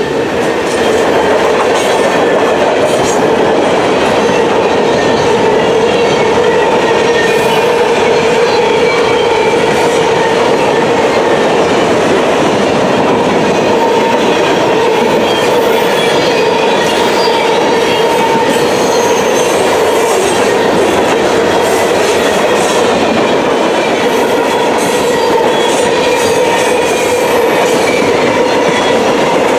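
Freight train cars, covered hoppers and black tank cars, rolling steadily past on the rails: a continuous loud rumble with a steady hum from the wheels. Occasional clicks and faint high wheel squeal sound over it.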